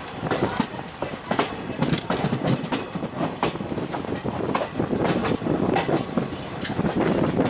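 Indian Railways passenger coach wheels clattering over rail joints and points on a curve, heard from the moving train: a steady rumble broken by irregular sharp clicks.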